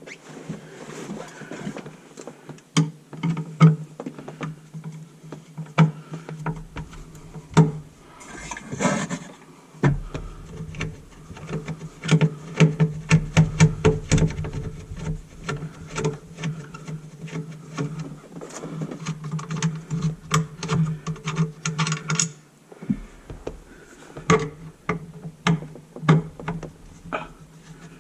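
Many quick clicks, taps and knocks of drain and disposal parts being handled and worked loose, over a steady low hum that drops out briefly twice.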